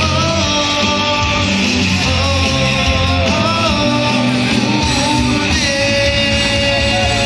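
Live rock music played loud through a stage PA: electric guitar, bass and drums with a sung melody line, heard from among the audience.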